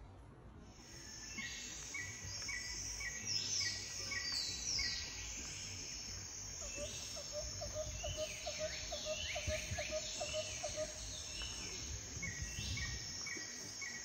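Several birds singing and calling: quick falling high whistles and runs of short repeated notes, with a lower run of evenly spaced notes midway. Under them are a steady high hiss and a low rumble.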